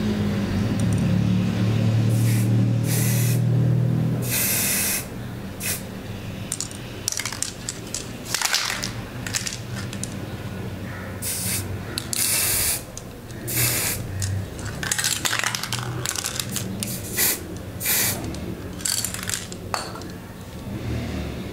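Aerosol spray paint can hissing in a series of separate bursts, some short and some held for a second or two, spraying black paint onto metal scissors. A low steady hum sits underneath for the first four seconds.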